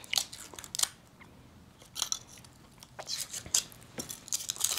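Close-up clicks and crinkly scratches from handling and unwrapping a foil-wrapped, bottle-shaped liquor-filled chocolate, scattered and busiest in the second half.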